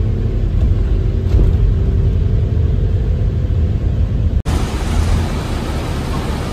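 Bus on the road: a steady low engine and road rumble. About four seconds in it changes abruptly to a stretch with more hiss over the rumble.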